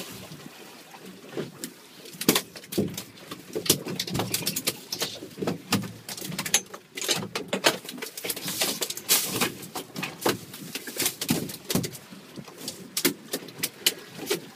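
Wind buffeting the microphone over a low rumble, with irregular slaps and splashes of choppy water against a small boat's hull.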